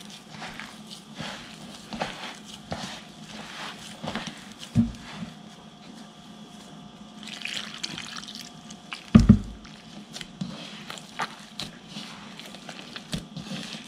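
Hand mixing flour and water into dough in a bowl, with small wet squelches and drips as water is worked in a little at a time. Two low thumps, the louder about nine seconds in.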